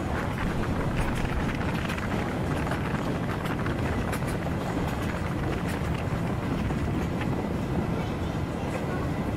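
Electric passenger train running along the track, a steady rumble of wheels on rails with scattered irregular clicks, heard from the open carriage window.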